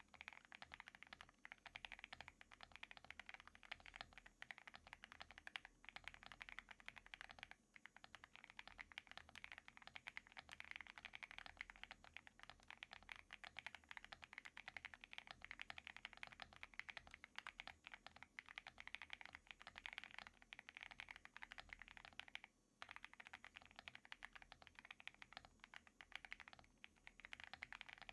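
Custom mechanical keyboard with hand-lubed Xinmeng Plum linear switches being typed on quickly and continuously: a dense run of keystroke clacks, with short pauses about 8 and 23 seconds in.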